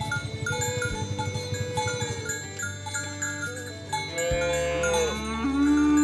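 Cattle mooing: a falling moo about two-thirds of the way in, then a loud, long, low moo near the end, over repeated short bell-like tones.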